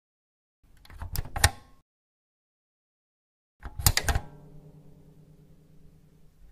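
Sound effect for a puzzle-cube logo: three bursts of rapid sharp clicks, the first about half a second in and the last near the end. The middle burst is followed by a low ringing chord that slowly fades.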